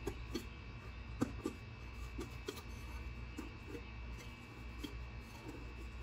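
Small scattered clicks and taps of hands handling and prying at a metal engine control module case, over a steady low hum.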